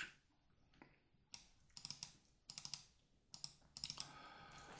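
Faint, scattered clicks of a computer keyboard and mouse: a few separate keystrokes and clicks about a second in, then more from two seconds on.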